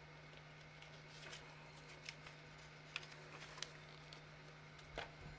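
Faint handling of paper and small metal eyelets: a few light clicks and paper rustles, over a low steady hum.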